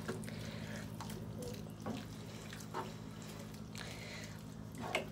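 A spoon stirring a runny chicken pot pie filling of broth and chopped chicken in a pan: faint wet sloshing with a few soft scrapes, over a steady low hum.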